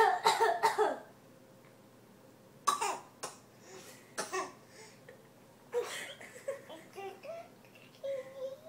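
A run of deliberate fake coughs: a quick cluster of coughs at the start, then single coughs every second or so, with short pitched sounds in between near the end.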